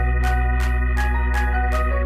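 Background music: an organ-like keyboard melody over held bass notes, with a steady beat of about three strokes a second.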